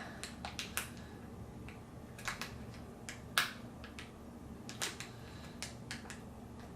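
Scattered small clicks and taps of fingers working at a toy's carton packaging while trying to open it, the sharpest click about three and a half seconds in.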